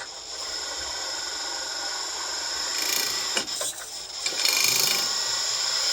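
Hydraulic pump of a 1/14 scale RC excavator whining steadily while the boom and arm are worked, with the pump turned down to about 70%. The whine drops a little after three seconds, then is louder for about a second before settling.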